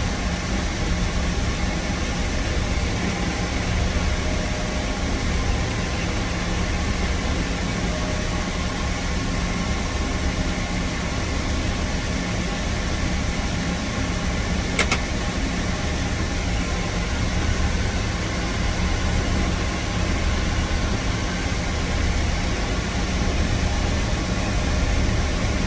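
A farm vehicle's engine running steadily with a low, even drone. There is a single click about fifteen seconds in.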